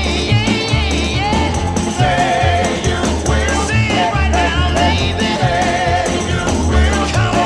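Background music: an upbeat song with a steady bass line and singing.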